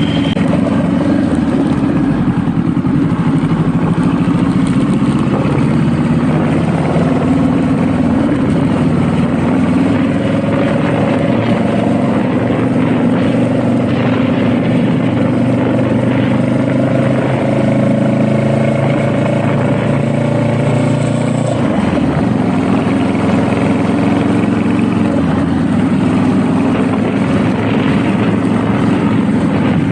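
Honda Rebel motorcycle engine running while riding. Its note climbs slowly through the middle and drops suddenly about two-thirds of the way in.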